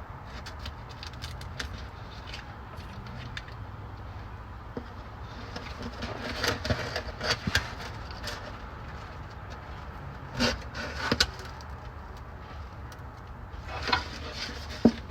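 Scattered clicks and knocks from working a hand pump on a bottle of gear oil while filling a van's rear differential, with a few denser bunches of handling noise, over a steady low rumble.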